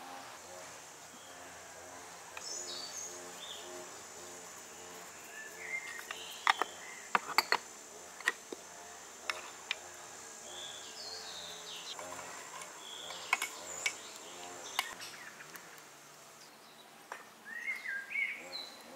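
Outdoor garden ambience: birds chirping and a steady high insect drone. Sharp clinks and taps of kitchenware come in a cluster about six to nine seconds in and again around thirteen to fifteen seconds.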